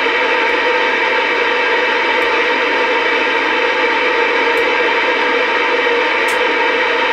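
Superstar 120 CB radio receiving plain static hiss through its speaker as the channel selector is stepped through channels with nobody transmitting, with a few faint ticks as the channels change.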